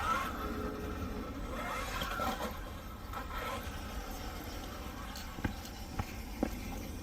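Large electric RC truck (Losi Super Rock Rey) driving over concrete: the motor and drivetrain whine up and down in pitch with throttle, and the tyres scrape. Three sharp knocks come about half a second apart near the end.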